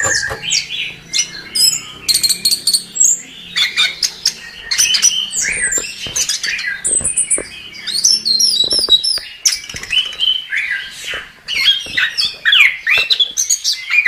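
Chestnut-capped thrush (anis kembang) singing a rapid, varied song of chirps, whistled notes and quick up-and-down glides, phrase after phrase with only short breaks.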